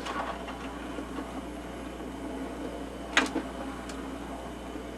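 Department 56 Village Animated Ski Slope running: its small electric motor and belt drive carry the skiers around the track with a steady mechanical whirr. A sharp click comes about three seconds in, and a smaller one just before four.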